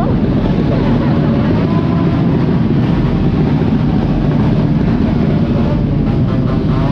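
Motorcycle engines running steadily at idle, with crowd voices mixed in.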